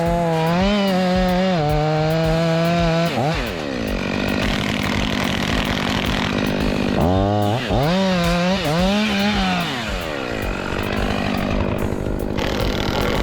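Chainsaw engine running at high revs, dropping off about three seconds in, then revving up and down several times and settling to a steadier run.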